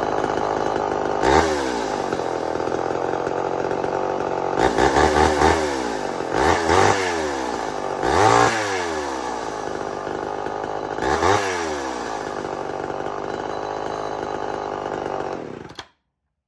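Homelite XL12 two-stroke chainsaw running, revved up and back down several times. It cuts off suddenly near the end.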